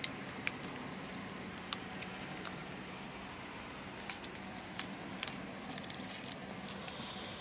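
Scattered sharp clicks and crackles of a handheld phone being moved and gripped, more of them about four to six seconds in, over a steady low hum inside the car cabin.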